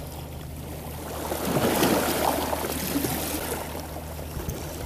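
Steady low hum of a fishing boat's engine idling, under a rush of wind and water noise that swells for a couple of seconds in the middle.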